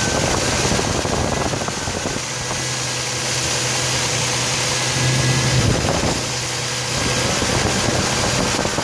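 Lexus SC300's 2JZ-GE inline-six engine idling steadily while it warms up, heard up close in the open engine bay.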